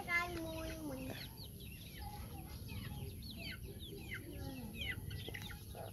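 Chickens clucking and calling: a drawn-out call in the first second, then a busy scatter of short, high, falling calls.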